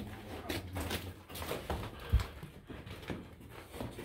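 Footsteps and scuffs on a mine's dirt and rock floor, irregular, with one sharper knock about two seconds in.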